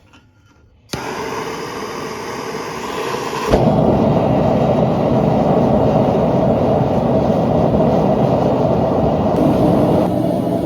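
A forge running: a loud, steady rushing noise that starts abruptly about a second in and gets louder about a third of the way through, then holds steady.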